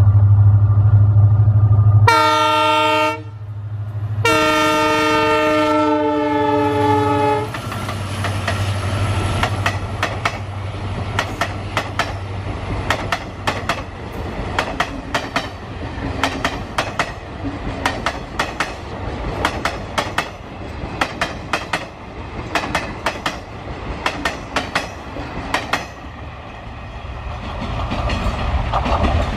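EMD WDG4 diesel locomotive working hard as it approaches, with a heavy low drone. Its multi-tone horn then sounds twice, a short blast of about a second and a longer one of about three. After it passes, the express coaches' wheels clatter over the rail joints in quick, irregular clicks.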